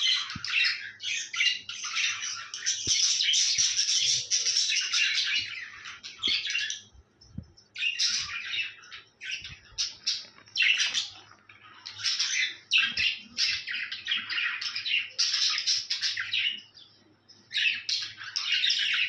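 Budgerigars chattering and chirping in fast, busy bouts of a few seconds each, broken by brief pauses.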